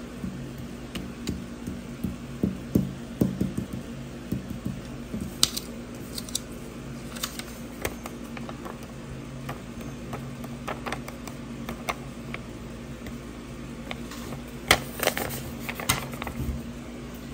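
Paper cutouts being handled and shuffled on a wooden table: scattered rustles and light taps, with louder bursts about a third of the way in and near the end. A steady low hum sits underneath.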